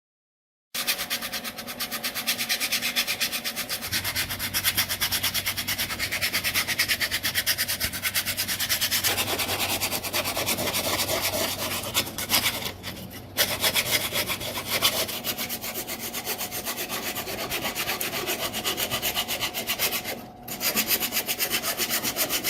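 Fast, steady rubbing or scraping strokes, like sanding, that start abruptly and break off briefly twice.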